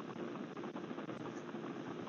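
Steady background hiss with a faint low hum, as picked up by a doorbell camera's microphone.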